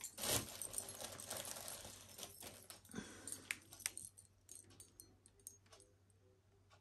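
Wrapping rustling, with light clinks and clicks as a piece of uranium glass jewelry is unwrapped and handled. It is busiest over the first few seconds, then thins to a few scattered clicks.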